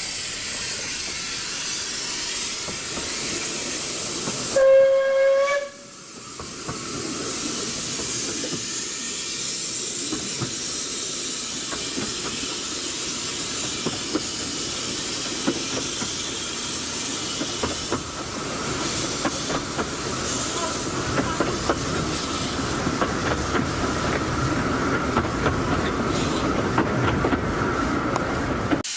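Narrow-gauge steam locomotive hissing steam, then giving one short whistle blast about five seconds in. After that the train pulls away and its coaches roll past, the wheels clicking on the rails more and more towards the end.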